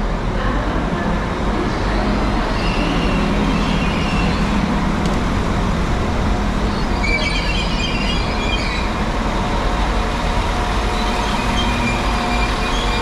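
Passenger train arriving at a station platform: a steady rumble of the train running in, with a few brief high-pitched tones in the middle.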